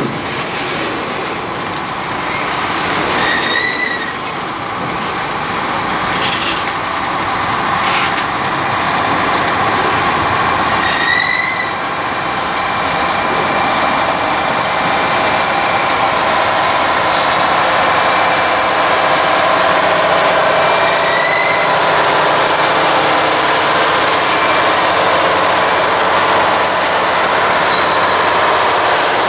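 Maintenance-of-way work train of gondolas and rail-handling flatcars rolling past on the track: a steady rumble of wheels on rail, with three short wheel squeals and a few sharp clanks.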